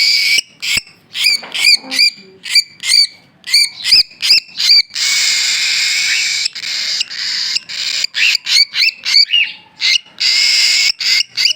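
Baby cockatiel chick calling: a fast series of short, shrill chirps, broken twice by a longer raspy, hissing call.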